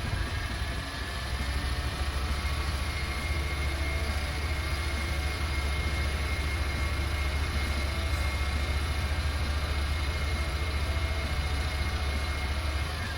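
TimberKing 1400 portable band sawmill running steadily, with a deep engine hum and a faint high whine that comes in a few seconds in.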